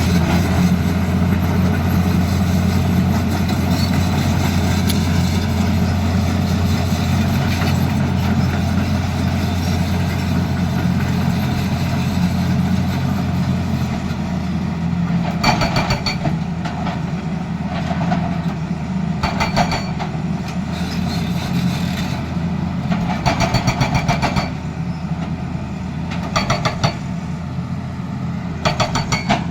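Tata Hitachi Zaxis excavator's diesel engine running steadily. From about halfway through, its hydraulic breaker hammers in five short bursts of rapid blows, each about a second long.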